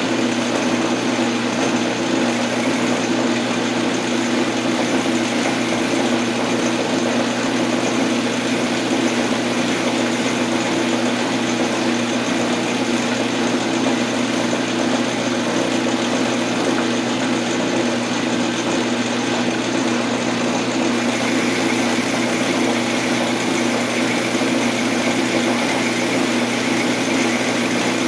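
Metal lathe running steadily, with a steady motor and gear hum, while the tool turns down a metal arbor blank held in a four-jaw chuck. A brighter, higher whine joins the hum about three-quarters of the way through.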